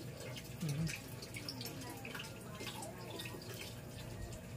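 Faint dripping and trickling water with scattered light ticks over a steady low hum.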